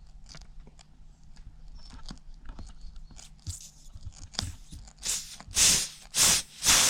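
Plug-kit probe tool being worked into a puncture in a tubeless ride-on mower tyre with small scraping clicks, then air hissing out of the tyre in several short bursts from about five seconds in, the last one running on as a steady hiss.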